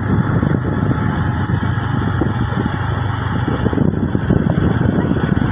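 A vehicle engine running steadily, with wind rumbling on the microphone.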